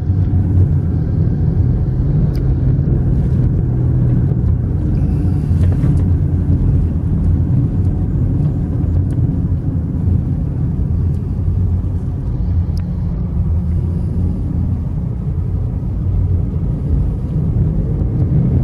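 Steady low engine and road rumble of a car, heard from inside its cabin as it creeps along in slow traffic.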